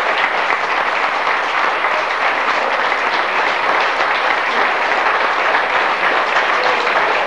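Audience applauding: many people clapping together, steady throughout.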